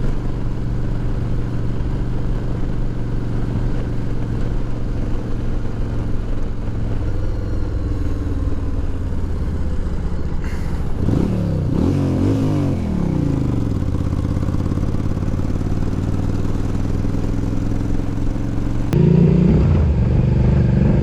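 Motorcycle engine running steadily on the road. About halfway through, its revs rise and fall several times. Near the end the sound cuts abruptly to a louder engine.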